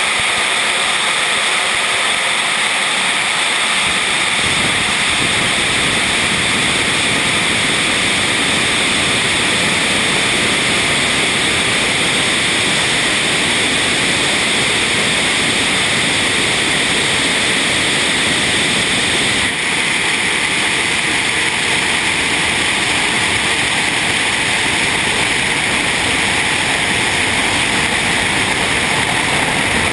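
Twin jet engines of a MiG-29K at takeoff power with afterburners lit, heard from a camera mounted beneath the aircraft between the engines: a loud, steady rushing noise with no clear pitch, growing deeper about four seconds in.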